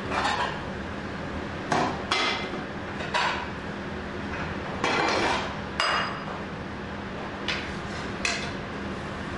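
Metal spatula knocking and scraping against a wok, about eight irregular clanks, some with a short metallic ring, as stir-fried food is scraped out.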